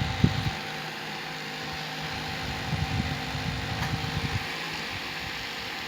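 Small USB portable table fan running steadily: a whirring rush of air with a faint motor hum. Low buffeting rumbles come and go, near the start and again midway.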